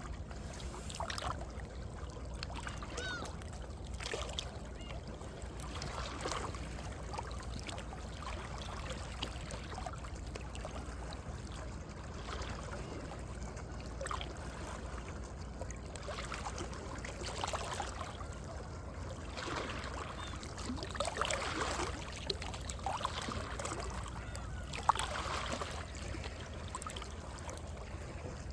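Small sea waves lapping and sloshing in the gaps between coastal rocks, gurgling and splashing at irregular intervals, with one sharper slap about 25 seconds in.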